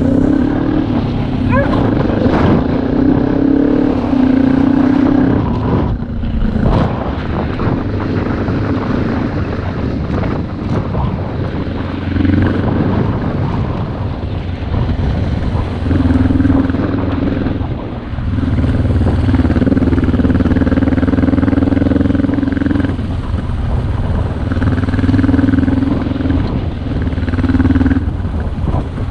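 Twin-cylinder adventure motorcycle engine running under way: the engine note holds steady for stretches of a few seconds and then eases off, over and over, with a few sharp knocks.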